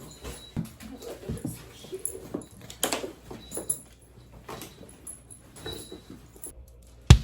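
A dog whimpering and whining in short, irregular bursts. One sharp click comes just before the end.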